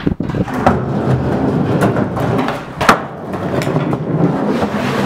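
Skateboard wheels rolling across a plywood subfloor with a steady hollow rumble, cut by sharp wooden knocks from the board, the loudest about three seconds in.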